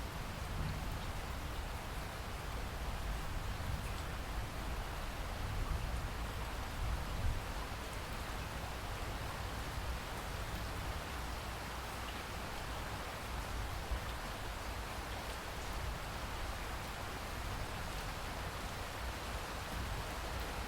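Steady rain falling, an even hiss with a continuous low rumble underneath.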